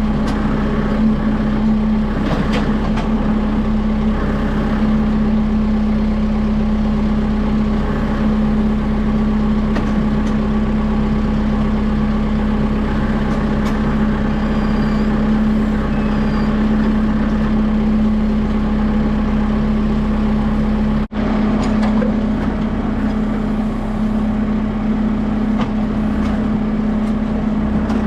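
Kubota M6060 tractor's diesel engine running with a steady drone. The sound breaks off for an instant about two-thirds of the way through, then carries on unchanged.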